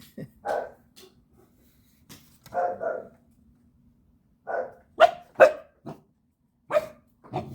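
Belgian Malinois puppy barking: about eight short, irregularly spaced barks, the sharpest two coming close together about five seconds in. They are alarm barks at a light-up skeleton the dog is scared of.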